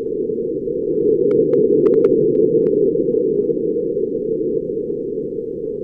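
NASA InSight lander's recording of wind on Mars, a low, even rushing noise picked up by the lander's seismometer and air pressure sensor as the wind shook its solar panels. It swells slightly about two seconds in, with a few faint ticks between about one and three seconds in.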